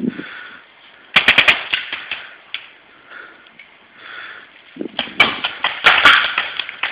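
Paintball markers firing in rapid strings of shots: a quick volley of five or six pops about a second in, then a longer run of rapid fire near the end.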